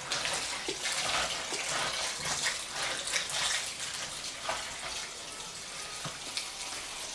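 Kitchen tap running into a stainless steel basin in the sink while bok choy leaves are washed by hand, with small splashes and knocks from the leaves and basin over the steady rush of water.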